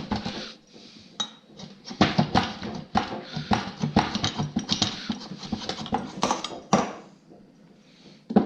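Metal engine parts and tools clattering and clinking as they are shuffled around on a workbench. There is a dense run of knocks from about two seconds in, with one sharp knock near the end.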